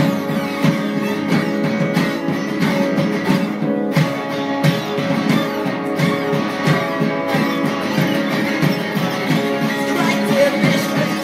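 Live string ensemble of violins, viola, cello and double bass playing an instrumental passage with a steady, even beat.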